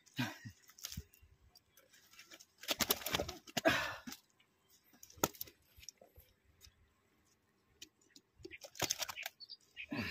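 Several short bursts of rustling and clicking, a second or two apart, as a freshly landed snakehead is handled and the hook worked with pliers on dry ground.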